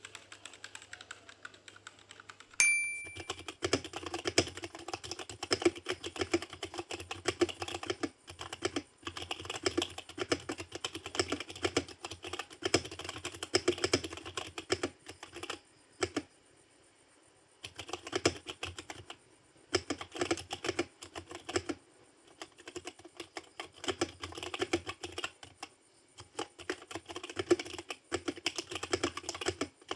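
Dareu EK871 mechanical keyboard with brown switches being typed on fast and continuously, a dense clatter of key presses. It pauses briefly twice, once about halfway and again later. A short ringing ping comes just as the fast typing starts.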